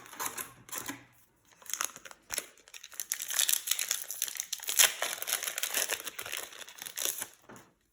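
Plastic booster-pack wrapper of a trading-card pack crinkling and tearing as the pack is opened, a dense run of crackles that grows louder after about three seconds.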